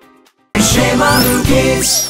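After a brief faint lull, music starts abruptly about half a second in, loud and full, with swooping high glides rising and falling over it, like the opening of a children's song or intro jingle.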